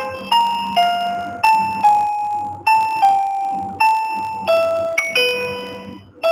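Slow, relaxing background music: a melody of single piano-like notes, about ten of them, each struck and fading away before the next.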